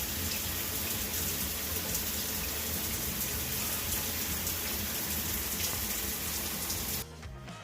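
Shower head spraying water in a steady hiss, freshly cleaned with vinegar and coming out the way it's supposed to. The sound stops abruptly near the end.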